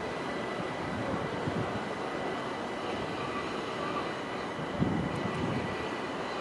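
Electric train at a station platform: a steady rumble with a thin steady whine, and a single knock about five seconds in.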